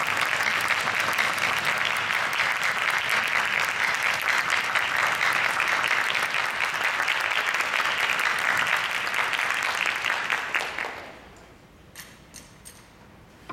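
Audience applauding steadily, dying away about eleven seconds in. A few faint clicks follow near the end.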